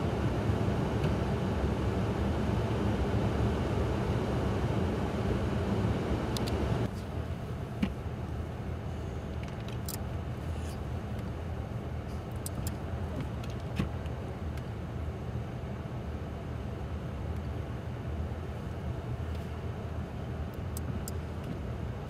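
Steady low rumble of a vehicle engine running, mixed with wind noise. The sound drops suddenly about seven seconds in and stays quieter, with a few faint ticks.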